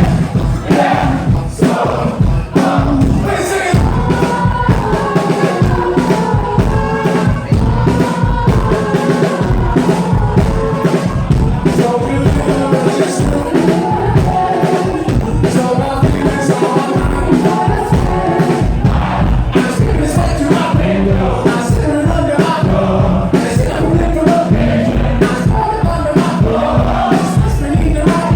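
Indie rock band playing live, with a steady driving drum beat under sung lead vocals and crowd noise in the mix.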